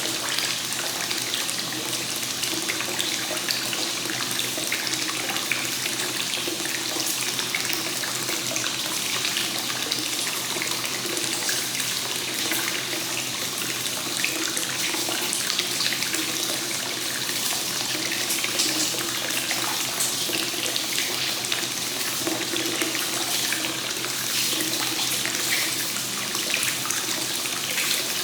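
Hot spring source water pouring steadily into a bath, a continuous, even splashing of running water.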